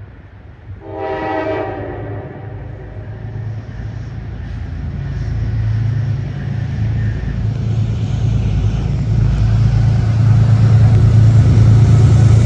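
Train horn gives one short blast about a second in. Then the train approaches with a low, steady rumble that grows louder and louder.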